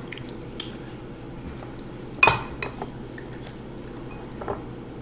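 Metal spoons clinking against a bowl and dishes: a few scattered clinks, the loudest about two seconds in.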